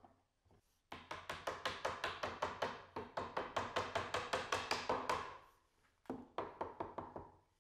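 Wooden mallet tapping walnut edge banding onto the edge of a plywood top, seating the glued joints. Rapid light wooden taps, several a second, for a few seconds, then a brief pause and a shorter run of taps near the end.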